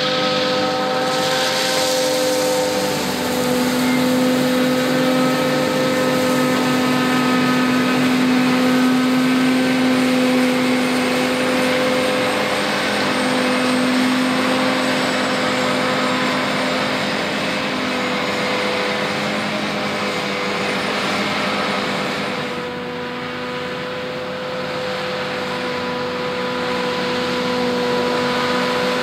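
John Deere 8600i self-propelled forage harvester chopping a cereal crop, with a tractor and transfer trailer running alongside. A steady machine drone carries a few held tones, and it drops slightly and changes tone about three-quarters of the way through.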